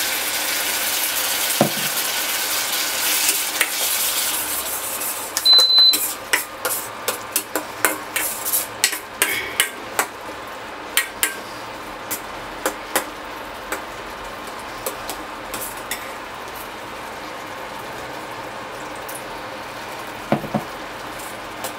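Water poured into a steel kadai of frying tomatoes sizzles loudly, dying down after about five seconds. A metal spoon then stirs and scrapes the steel pan in a quick run of clicks and knocks that thins out in the second half. A short high beep sounds about five and a half seconds in.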